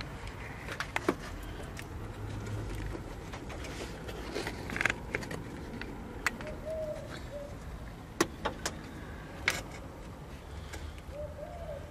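Scattered sharp metallic clinks and knocks of tools and parts being handled at a car's clutch bellhousing and gearbox, over a low steady hum. A bird coos faintly about two-thirds of the way through.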